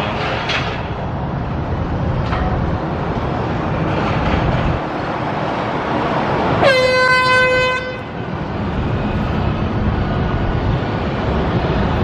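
A single horn blast, one steady note held for just over a second, about six and a half seconds in, over a steady low rumble.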